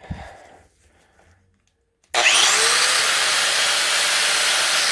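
Angle grinder switched on about two seconds in, spinning up quickly and then running steadily at full speed, free-running with no load. It is powered from a newly installed 2000-watt inverter, which is handling the load.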